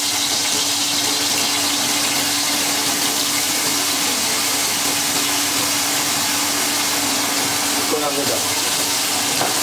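Steady hissing from a pot of ghee heating on a gas stove, over a low, unchanging hum.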